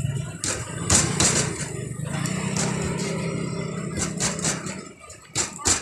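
Steady low hum of an engine running, fading out about five seconds in, with sharp slaps and clatter from roti dough being slapped and worked on a steel counter.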